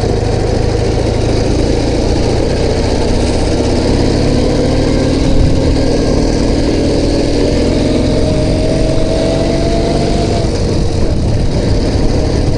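Ural Tourist sidecar motorcycle's flat-twin engine running under way, its pitch climbing steadily from about four seconds in until near the end as it speeds up.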